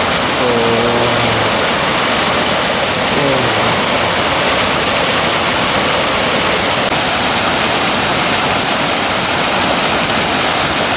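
Small forest brook pouring over rocks in a little waterfall, giving a loud, steady rush of splashing water.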